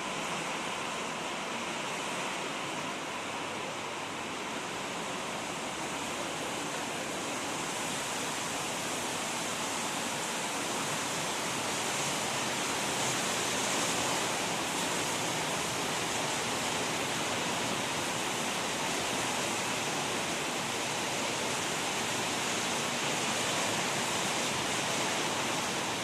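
Heavy rain falling, a steady dense hiss that grows slightly louder about halfway through.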